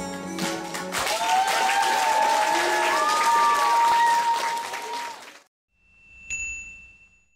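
The backing music ends, and about a second in the audience breaks into applause with voices calling out. The applause cuts off suddenly, and a single bright chime rings out and fades away.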